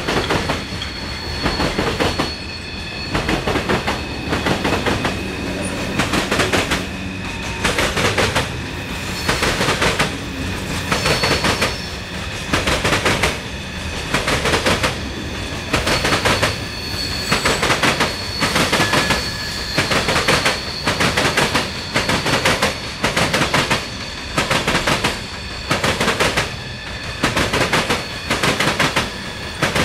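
CSX freight train cars rolling past. The wheels clack over the rail joints in a steady rhythm about once a second, with faint high steel-wheel squeal over it.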